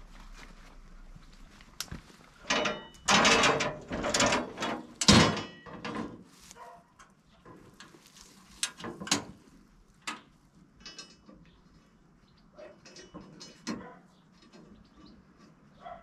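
Puppies barking and yelping in a run of loud bursts a few seconds in, followed by a few scattered shorter yips.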